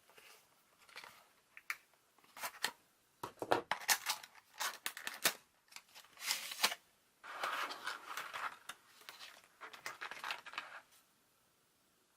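Toy packaging being opened by hand: irregular rustling, tearing and sharp clicks of cardboard and plastic, stopping about a second before the end.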